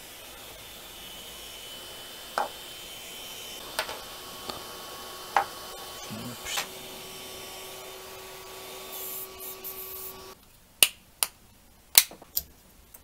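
Small Anet A8 3D-printer cooling fan running quietly with a steady soft whir after being cleaned of dust and lubricated with liquid grease, with a few sharp clicks; the fan cuts off suddenly about ten seconds in, followed by several clicks.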